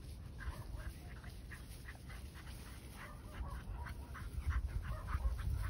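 A dog making short repeated sounds, several a second, with wind rumbling on the microphone, the rumble stronger in the second half.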